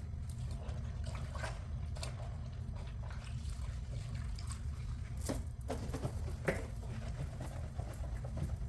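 Wet scrubbing and wiping inside a mini fridge with a cloth and water-based cleaner, with scattered light knocks against the plastic, over a steady low rumble.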